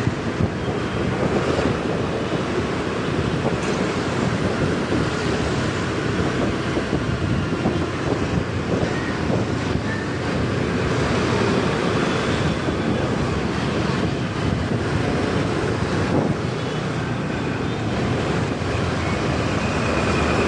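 Wind buffeting the microphone of a moving motorbike, with steady road and traffic noise beneath.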